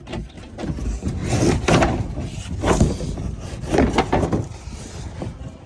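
Irregular rubbing and scraping noises from parts being handled, in several uneven surges about a second apart.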